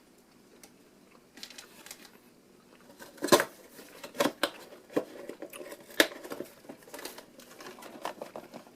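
Plastic snack-pack wrapper crinkling as it is handled, in a run of irregular sharp crackles, the loudest about three, four and six seconds in.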